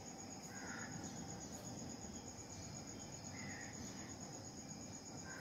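Faint, steady high-pitched chirping trill of a cricket, continuous throughout.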